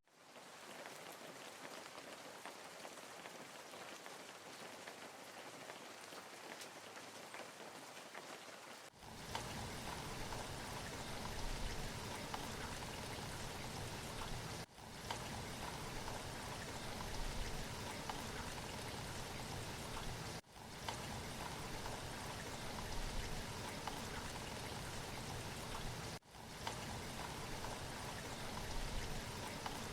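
Steady hiss of rushing water with no distinct drops or splashes. It is quieter for the first nine seconds or so, then louder and fuller, broken by three brief dropouts.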